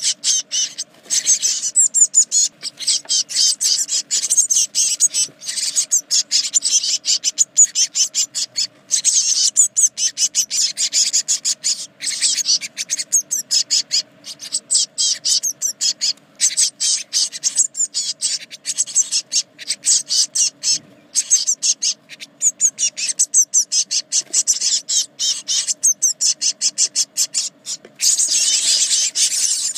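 Blue tit nestlings, 18 days old, begging in a dense, rapid, high-pitched chatter inside the nest box while an adult is at the nest. The chatter comes in runs broken by short pauses, over a faint steady hum.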